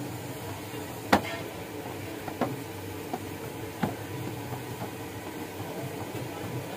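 Namak paare dough being kneaded by hand on a stainless steel sheet, with a few short knocks as hands and dough press against the metal. The loudest knock comes about a second in, then fainter ones, over a steady background hum.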